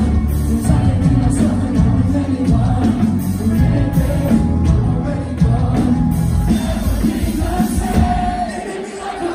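Metalcore band playing live, with amplified singing over distorted guitars, bass and drums, heard from the audience in a concert hall. Near the end the heavy low end drops away briefly.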